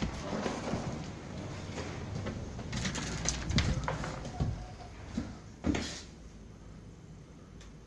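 Footsteps on a bare concrete floor and handling rustle from a hand-held phone being carried through an empty room, with a few sharp knocks and clicks; the sounds stop about six seconds in, leaving a quiet steady background.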